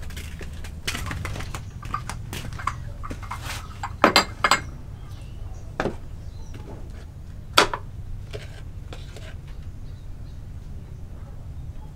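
Dishes and a drinking glass being handled and set down on a counter: scattered clinks and knocks, loudest in a quick cluster about four seconds in and a sharp single clink about halfway through.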